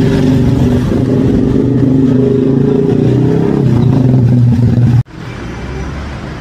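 Sport motorcycle engine running steadily close by, loud and even. About five seconds in the sound cuts to a quieter, lower engine hum.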